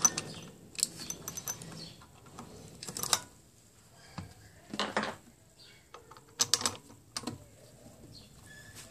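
Scattered clicks and knocks of a drill press chuck being handled and turned by hand as a homemade sanding bit is fitted into its jaws. The bit is a drill bit sleeved in hose and sandpaper. About eight or nine separate clicks come at uneven intervals, with no motor running.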